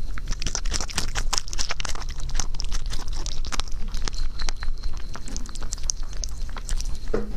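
A rabbit biting into and chewing a fresh strawberry close to the microphone: a rapid, uneven run of small crunches and clicks, busiest in the first couple of seconds, over a steady low hum.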